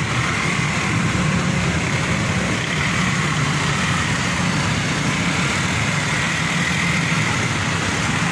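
A small vehicle engine idling steadily close by, giving a continuous low rumble.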